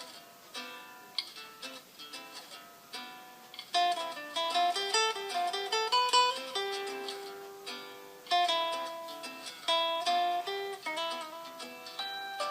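A Samsung Galaxy J1 Ace ringtone playing: a melody of plucked-string notes that grows louder and busier about four seconds in.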